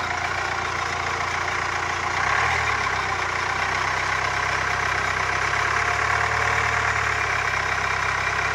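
Hyundai i30's engine running with throttle while the front hub and brake disc spin freely with the wheel off. The engine note rises a little about two seconds in and holds. This is a test run listening for a suspected worn front wheel bearing.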